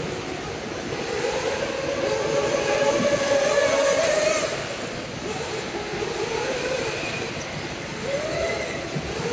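Several 1/8-scale RC off-road buggies running on a dirt track, their motors whining and rising and falling in pitch with the throttle, loudest about three to four seconds in.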